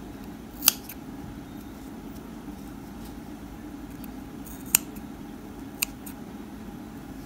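Small red-handled thread snips cutting white yarn: three short, sharp snips, one under a second in and two more a second apart near the end.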